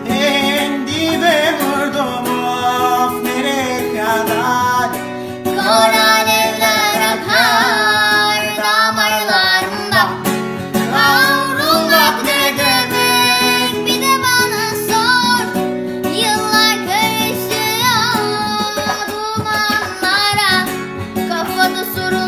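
Background music: a song with a high singing voice over plucked acoustic guitar.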